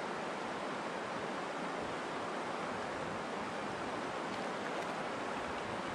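A steady, even rushing noise with no distinct events and no voices.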